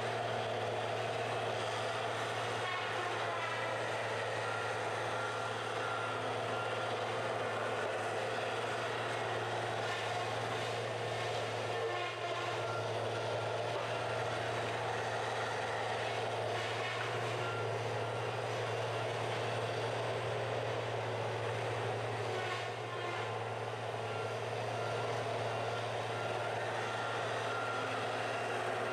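Diesel engine and hydraulics of a wheeled feller buncher running steadily under load as it works through a bamboo stand, a constant drone with a few faint crackles now and then.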